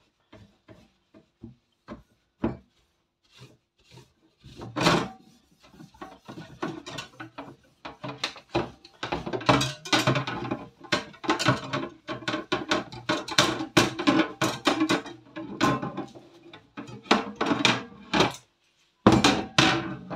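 A chrome wire oven rack being scrubbed with a cleaning sponge in a sink: quick, irregular rubbing and scraping strokes with knocks and rattles of the metal rack. The strokes are sparse at first and come thick and fast from about halfway.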